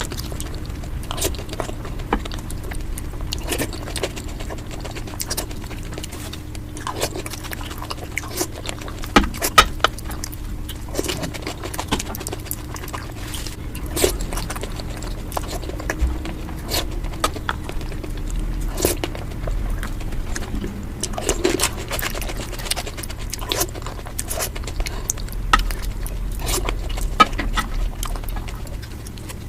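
Sped-up eating sounds: a rapid, irregular run of crunches, smacks and wet clicks from a person chewing Indian street snacks.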